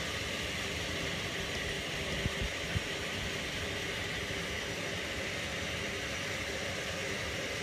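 Steady hum and hiss of a running batch pasteuriser during its heating cycle, its agitator motor and pumps at work, with a couple of soft low knocks a little over two seconds in.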